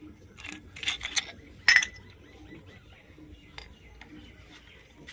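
Miniature metal toy wok clinking as it is handled and set down among the toy kitchen pieces: a quick run of light clinks, then one sharp, loud clink a little under two seconds in, and a few faint ticks after.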